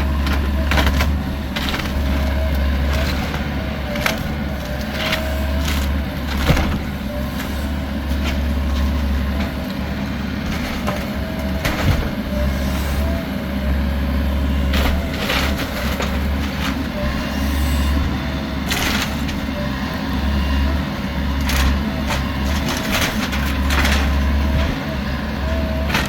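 Bobcat E85 compact excavator running steadily while tearing apart a manufactured home, with repeated cracks, knocks and crashes of the structure breaking and debris falling.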